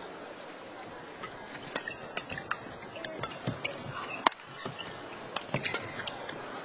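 Badminton rackets hitting a shuttlecock in a fast doubles rally: a string of sharp, irregular cracks starting about a second in, the loudest a little past halfway, over the steady murmur of an indoor arena crowd.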